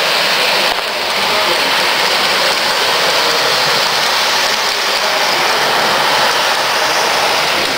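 O-gauge model freight train running close by on metal three-rail track: a steady, loud rushing hiss of wheels and motor.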